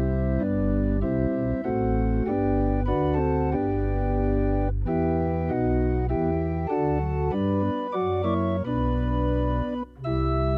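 Church organ playing a hymn tune in held chords that change every half second or so, with a short break between phrases near the end.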